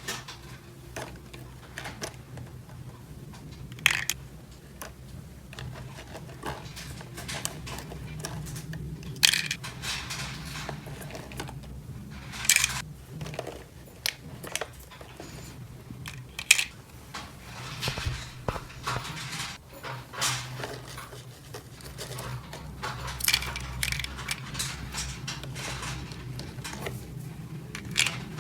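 Small plastic toy pieces clicking, clacking and tapping together as they are handled and set in place, irregular sharp knocks, a few louder than the rest, over a steady low hum.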